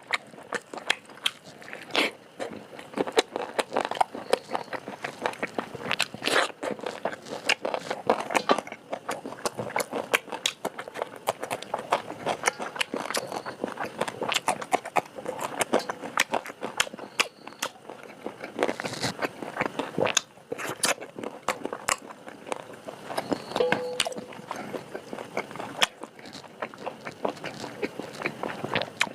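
A person chewing and biting into pork curry: an irregular, continuous run of crunches and small clicks.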